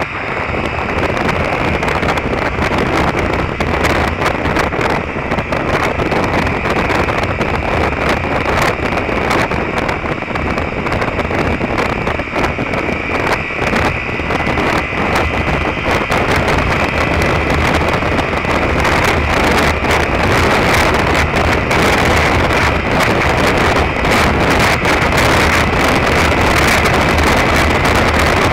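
Wind rushing over the microphone with the steady drone of a Derbi Terra Adventure 125's single-cylinder engine underneath, the motorcycle cruising at a constant road speed.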